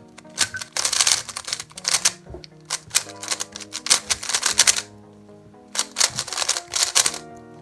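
MFJS Meilong 3x3 speedcube, not lubricated, being turned fast in a solve: three runs of rapid plastic clicking and clacking with short pauses between them.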